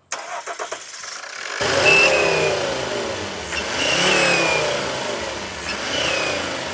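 Volvo car engine run up in three revs about two seconds apart after a quieter first second and a half, a thin high whistle sounding with each rev. The mechanic takes the whistle as very likely an exhaust leak from a burnt-through EGR pipe near the turbo and exhaust manifold.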